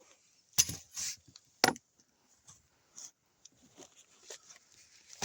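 Campfire wood crackling: a few sharp pops, the loudest about half a second and a second and a half in, with fainter snaps between.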